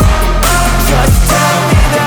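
Loud electronic background music with a heavy bass and a steady drum beat, synth notes held over it.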